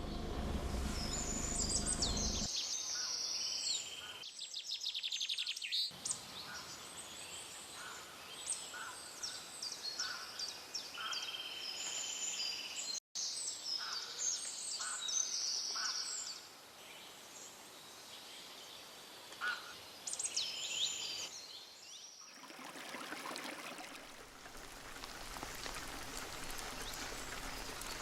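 Songbirds singing, many short chirps and trills, with a low rumble in the first two seconds. About 24 seconds in, the birdsong gives way to a steady, even hiss.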